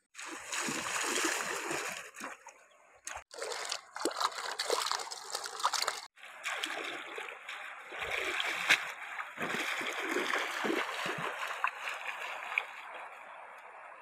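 Shallow river water splashing and sloshing as someone wades and dips a woven basket, water pouring out through the weave as it is lifted. The sound cuts off briefly about three and six seconds in.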